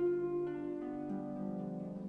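Concert pedal harp playing: a chord is plucked at the start, then further notes come in about half a second and a second later, each ringing on.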